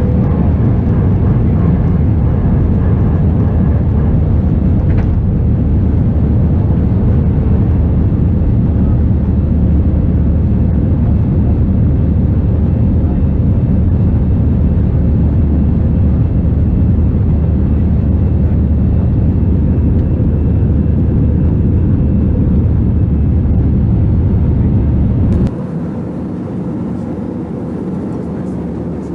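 Steady low rumble of an Airbus A321's engines and rushing air heard inside the passenger cabin. About 25 seconds in the sound drops abruptly to a quieter, thinner version of the same noise.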